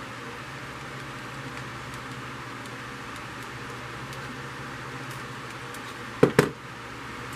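Steady low hum and hiss of room noise as a glass cup wrapped in a silver bead garland is handled. Two sharp knocks land close together about six seconds in, the beaded glass knocking against the table or itself.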